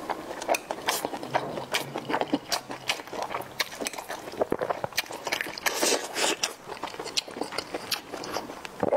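Close-miked eating sounds: chewing, with many small sharp clicks and taps of metal chopsticks against a porcelain bowl and plate.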